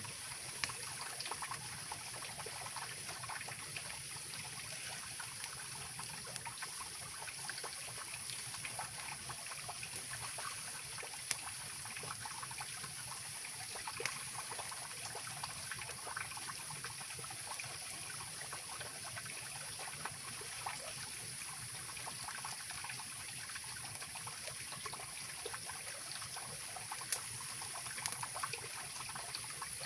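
Mountain river rushing steadily, with a wood campfire giving occasional sharp crackles and pops, the clearest about a third of the way in, near the middle and near the end.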